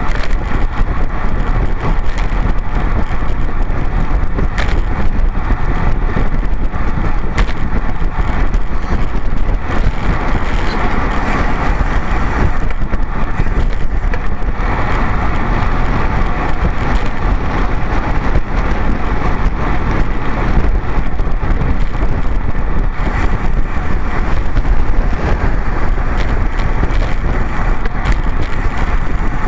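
Steady wind rushing over the microphone of a camera riding on a road bike, mixed with road noise.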